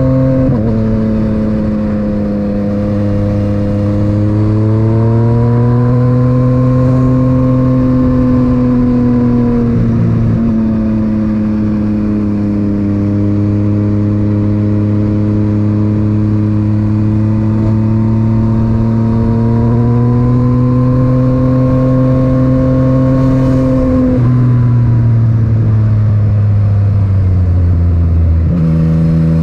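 Yamaha MT-09's three-cylinder engine through an Akrapovic titanium exhaust, heard onboard from a helmet chin mount. The engine note climbs and falls with the throttle while riding, and drops suddenly in pitch a few times at gear changes.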